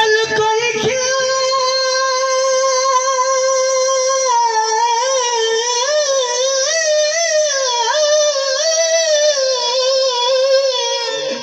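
A man singing one long, high, held line with wavering ornamental turns into a microphone.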